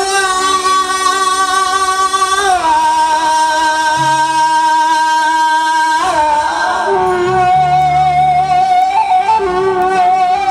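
Live Egyptian shaabi music: a man singing long, drawn-out notes without clear words, sliding down to a new pitch about two and a half seconds in and again near the middle, over instrumental accompaniment.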